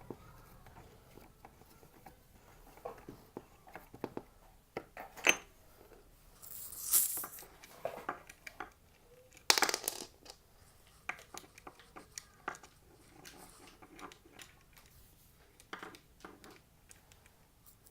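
Irregular clicks, clinks and short scrapes of small metal skateboard truck hardware (bolts, nuts) and a skate tool being handled, with a few louder knocks scattered through.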